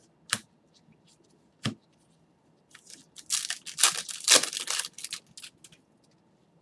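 Trading card pack's foil wrapper torn and crinkled by hand: a burst of crackling from about three seconds in, lasting about two and a half seconds. Two short sharp clicks come first.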